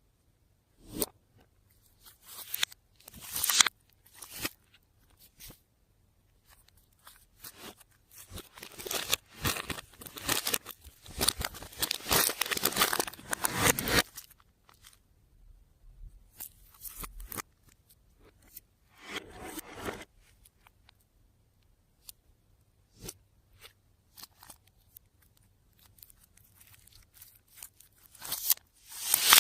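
Slime being worked by hand, squished, stretched and mixed: sticky crackling and popping in irregular bursts, busiest from about eight to fourteen seconds in.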